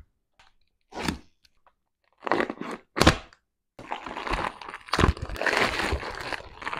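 Vacuum-sealed plastic packaging being torn open and peeled off raw beef cheeks, crinkling and crackling without a break for the last three seconds. Before that come a few short separate knocks and rustles.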